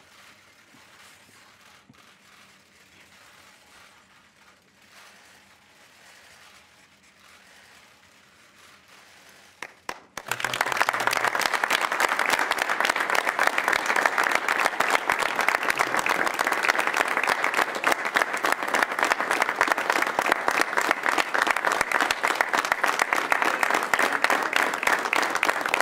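Quiet room for about ten seconds, then applause breaks out suddenly about ten seconds in and continues steadily at full strength.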